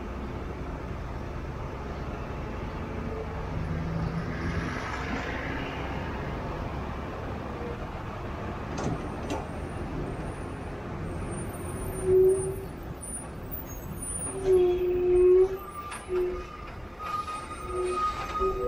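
Steady low road and engine rumble of a car moving in heavy traffic behind trucks. In the second half, vehicle horns sound in several short, loud blasts, with a longer higher-pitched horn note near the end as the traffic bunches up.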